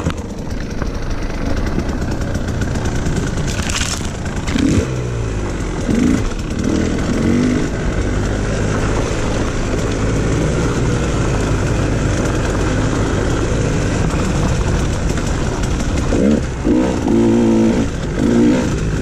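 A new two-stroke dirt bike engine, a 2019 KTM 150 XC-W with an FMF Turbine Core 2 silencer, ridden on a trail during its break-in. The revs rise and drop back several times, with a steadier stretch in the middle.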